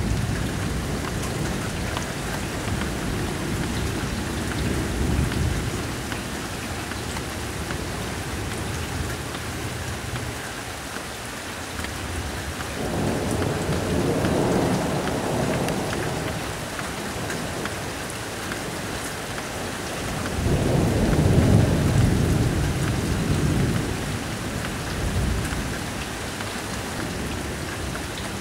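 Steady rain falling, with thunder rumbling: a rumble fades over the first several seconds, then two more peals of thunder start about 13 and 21 seconds in, the second the loudest.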